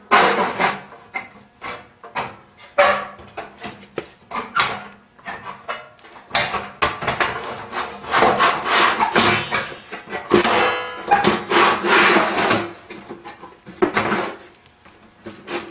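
Painted sheet-metal outer cover of a Reddy Heater kerosene torpedo heater being slid and worked down into place over the base, scraping and rubbing with repeated knocks of metal on metal and a brief ring about ten seconds in.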